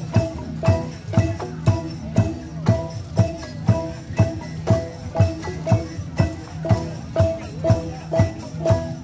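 Central Highlands bamboo xylophones (t'rưng) struck with mallets by a group, repeating a short pitched figure over a steady low beat about twice a second.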